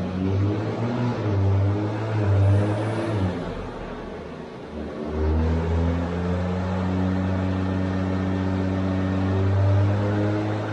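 Toyota A90 Supra's engine running, easing off about three seconds in, then holding a steady speed from about five seconds on.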